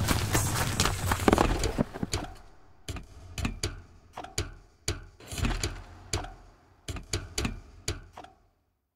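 A dense clatter of clicks and knocks that thins after about two seconds into separate sharp clicks, each with a low thud, about two a second and unevenly spaced, dying away near the end.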